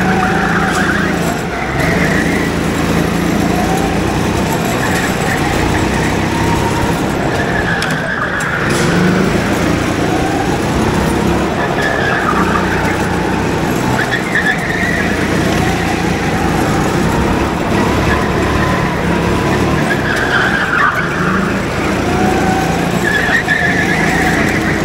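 Go-kart engines running hard, their pitch dipping and climbing again every few seconds.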